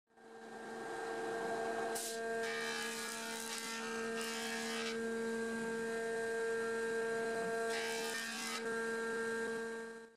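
Combination planer-jointer running with a steady hum, with a rushing hiss of wood being cut on the cutterhead from about two to five seconds in and again, more briefly, near the end.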